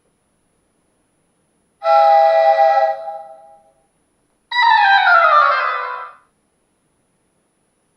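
Two iPhone iOS 5 alert tones played one after the other: first a short chord-like chime that fades out over about two seconds, then a tone of several notes sliding downward together for about a second and a half.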